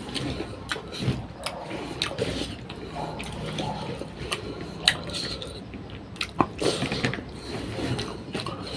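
Close-miked eating: a person chewing with many wet mouth clicks and smacks, two sharper clicks standing out about halfway through.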